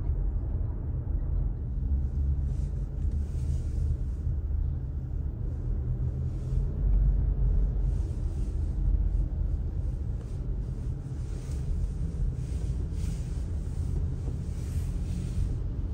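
Steady low rumble of a car driving, with a faint hiss of tyres on a wet road that swells and fades.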